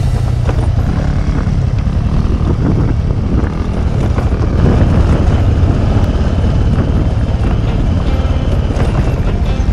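Aprilia Pegaso 650's single-cylinder engine running steadily while riding on a gravel track.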